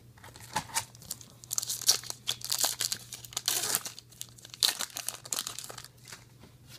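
A 2018 Topps Star Wars Galactic Files card pack wrapper being torn open and crinkled by hand: a busy run of irregular crackling and tearing, thickest in the middle.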